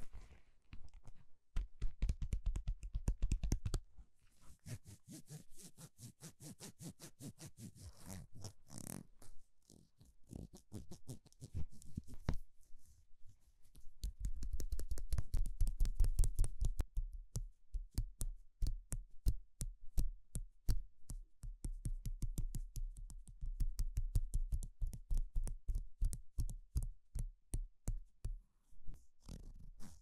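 Close-up ASMR tapping and scratching: gloved fingers work a plastic handle right against a lavalier microphone, making rapid clicks in quick runs. There are heavier thumping stretches about two seconds in and again around the middle.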